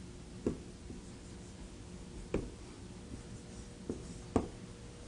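Writing on a lecture board: a few sharp taps, about half a second in, near the middle and twice near the end, the last the loudest, over a faint steady room hum.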